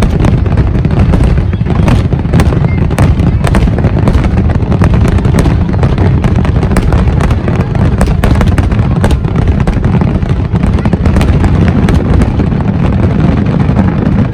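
Aerial fireworks going off in a continuous barrage: many sharp bangs and crackles in quick succession over a steady low rumble of booms.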